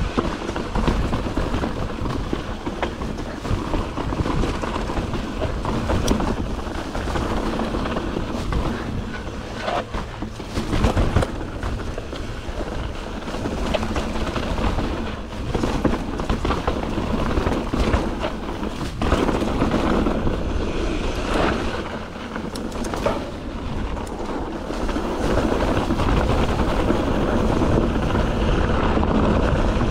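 YT Jeffsy full-suspension mountain bike descending a dry, rocky dirt trail: tyres rolling over dirt and rock with a steady low rumble, and the bike rattling with frequent sharp knocks as it hits bumps.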